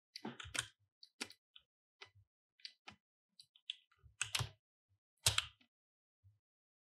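Keys on a computer keyboard being pressed, about a dozen short irregular clicks and taps, two louder ones in the second half.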